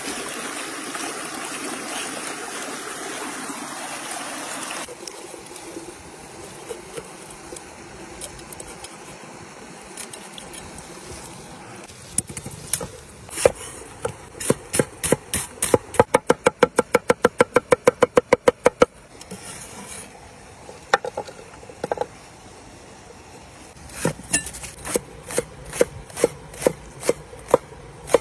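Stream water rushing and splashing over hands for the first few seconds. Then a cleaver chops on a thick wooden board: scattered knocks, a fast even run of about six chops a second a little past the middle, and steady chopping of green chillies near the end, with the stream running softly behind.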